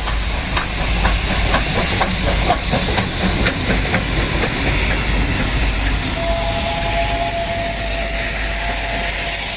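Pacific steam locomotives running past with a steady hiss of steam over a low rumble. A run of quick clicks comes in the first few seconds, and a faint steady tone sounds from about six seconds in.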